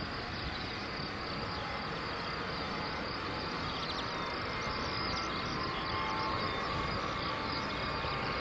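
BAe 146-200's four Lycoming ALF502 turbofans at low taxi power: a steady rushing noise with a thin whine that grows a little stronger near the end as the jet rolls slowly after landing.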